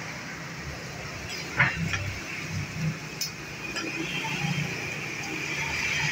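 Metal spatula scraping and clinking against a steel teppanyaki griddle plate as food is turned. There are a few sharp clinks, the clearest about a second and a half in and again about three seconds in, over a steady background hiss and murmur.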